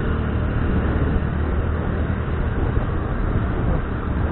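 Motor scooter being ridden along a city road: its engine runs steadily under a low hum of wind and road noise on the handlebar-mounted microphone.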